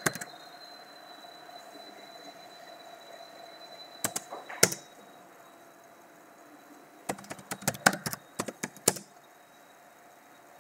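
Computer keyboard keys clicking in short runs: a couple of presses at the start, two more about four seconds in, then a quick run of about ten keystrokes between seven and nine seconds in. A faint, steady high-pitched electrical whine sits underneath.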